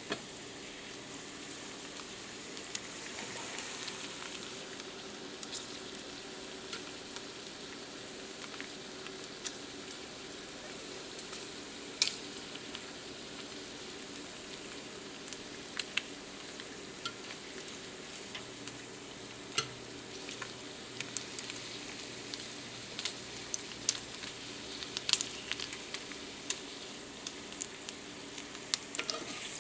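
Bacon strips frying in hot fat in a pan: a steady sizzling hiss with scattered sharp pops of spattering grease.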